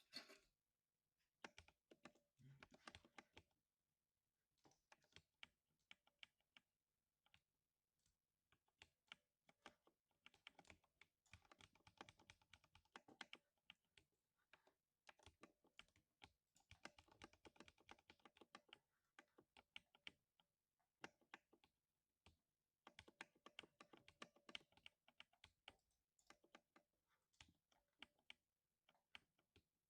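Faint typing on a 60% mechanical keyboard with lubed switches, each keystroke a soft thock. It comes in quick runs of keystrokes, about ten, seventeen and twenty-four seconds in, with slower scattered presses between.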